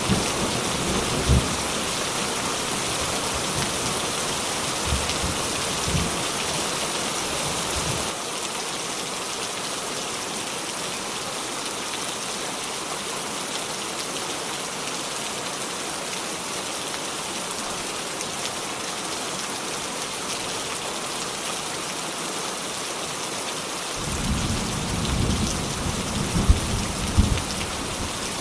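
Steady heavy rain hissing on surfaces, with thunder rumbling and cracking in the first eight seconds or so and rolling in again near the end; the middle stretch is rain alone.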